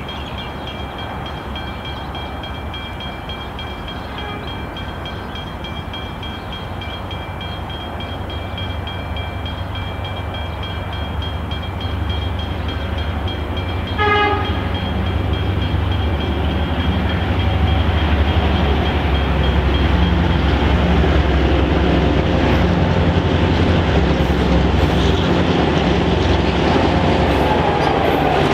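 A locomotive-hauled passenger train approaches and passes close by. Its rumble builds steadily, with a short warning blast from the locomotive about halfway through.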